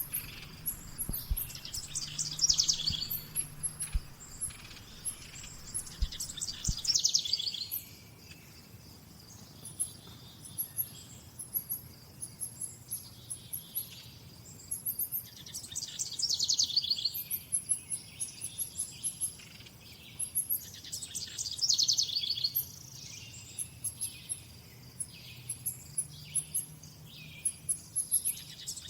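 Wild birds singing: one bird repeats a fast trilled phrase four times, several seconds apart, over a steady run of thin, high chirps.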